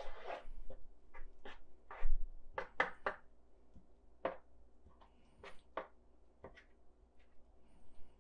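A spoon stirring and scraping in a frying pan of meat sauce: a run of irregular scrapes and taps, with one louder knock about two seconds in.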